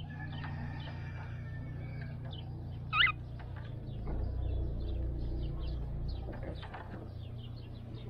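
Cockatiel giving one short, louder call about three seconds in, among many faint short chirps, over a steady low hum.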